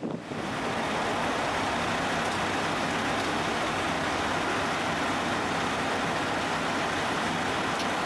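Bridge inspection truck's diesel engine running steadily at close range: a constant low hum under an even rushing noise, coming in abruptly at the start.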